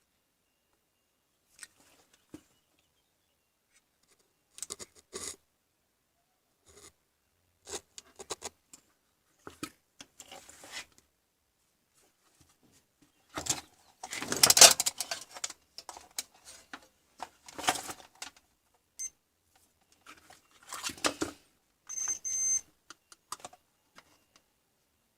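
Intermittent clicks, rattles and scrapes of small parts and tools being handled, with silent gaps between them. The loudest clatter comes about 14 seconds in.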